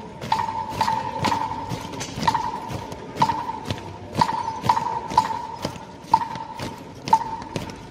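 Marching-band percussion tapping out a walking beat: sharp clicks, each with a short ringing tone, about two a second, with a beat now and then left out.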